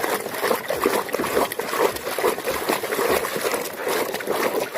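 Water splashing and trickling in irregular small splashes as a toy is washed by hand.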